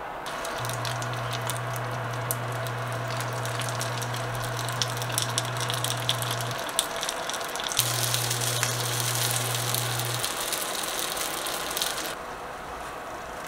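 Dumplings sizzling and crackling as they pan-fry in hot oil. The sizzle grows louder about eight seconds in as more dumplings go into the pan, then cuts off abruptly near the end.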